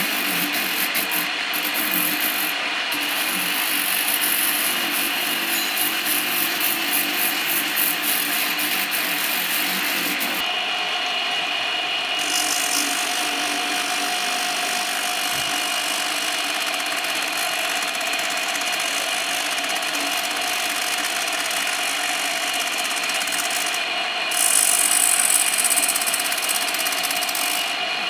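Handheld rotary buffing tool running steadily against tyre rubber: first an abrasive disc grinding the inside of the tyre, then, from about ten seconds in, a wire-brush wheel scuffing the sidewall around a crack with a steadier whine. The rubber is being roughened to take a repair patch.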